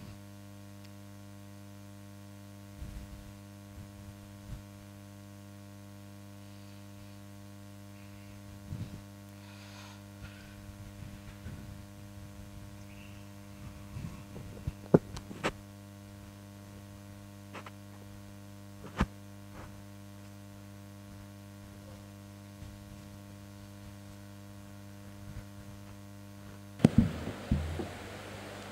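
Steady electrical mains hum on the microphone feed, with a few scattered sharp clicks and knocks. Near the end come loud bumps and rustling as the microphone on its stand is handled and adjusted, after which a hiss rises.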